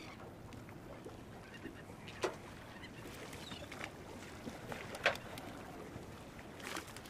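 Cast net being hauled up out of the water over a boat's side: water splashing and dripping off the mesh, with two sharp knocks about two and five seconds in and a few more near the end.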